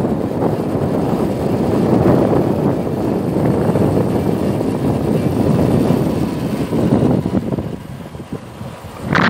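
Wind buffeting the microphone of a moving two-wheeler, with the rush of the ride. The noise eases about three-quarters of the way through, and a brief sharp sound comes near the end.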